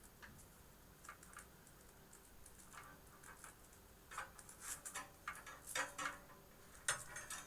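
Scattered small clicks and taps of cables and plastic parts being handled inside a computer case, growing busier in the second half with a few short scraping rustles.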